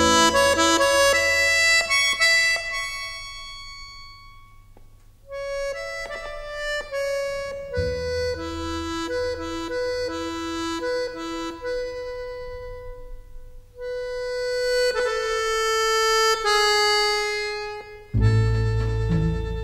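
Instrumental film-theme music led by a free-reed instrument playing slow, held melody notes. The notes fade almost out about five seconds in, then a new phrase starts and swells. Near the end it changes abruptly to a different piece with a strong bass.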